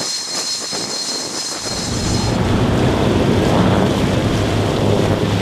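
High steady whine of a T-45 Goshawk jet trainer's turbofan engine running. About two seconds in it gives way to a small military boat running fast over open water: engine drone with spray, waves and wind on the microphone.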